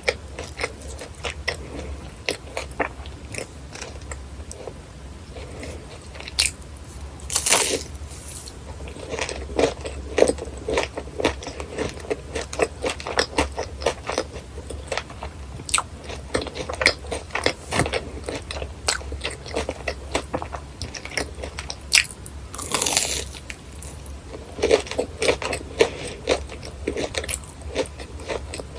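Close-miked crunching and chewing of crisp fried churros, with loud crackly bites about seven seconds in and again about twenty-two seconds in, and steady crunchy chewing between them.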